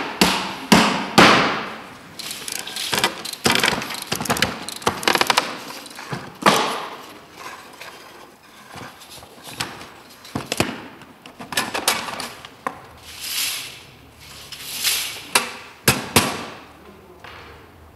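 A hammer nailing down a wooden crate lid, with a few loud strikes in the first second or so. Then come irregular metal clicks and knocks and two short rasps, from a hand strapping tool tensioning and sealing a band around the crate.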